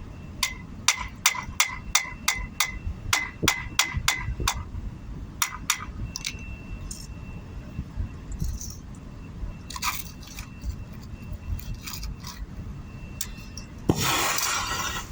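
Metal striking metal in quick, ringing taps, about three a second, then sparser clinks. A short hiss comes near the end.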